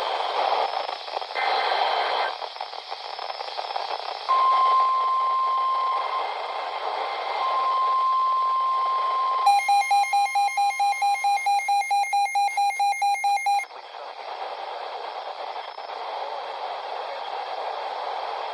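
Emergency alert tones over a radio receiver: static and hiss, then a steady single-pitch alert tone with a short break, then about four seconds of rapid pulsing beeps, then back to static. This is the attention signal that leads into an alert broadcast.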